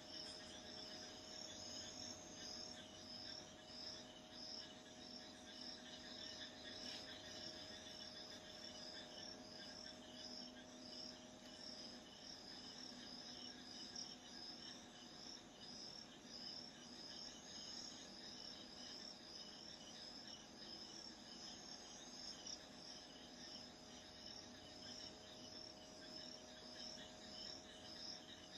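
Crickets chirping faintly in a steady rhythm, about two chirps a second, over a steady low hum.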